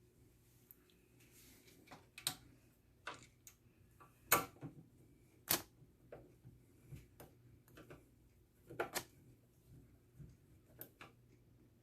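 Screws being driven with a screwdriver to fasten a power supply into a metal PC case: irregular faint clicks and ticks of metal on metal. The sharpest come about four and a half and five and a half seconds in, and a quick pair near nine seconds.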